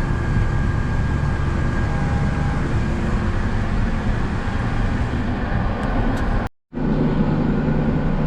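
Tractor engine running steadily while pulling a corn planter through the field, heard from inside the cab. The sound cuts out completely for a moment about six and a half seconds in.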